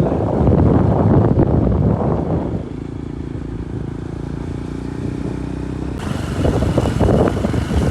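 KTM motorcycle engine running while riding, rough and loud for the first couple of seconds, then a steadier engine note, with an abrupt change about six seconds in.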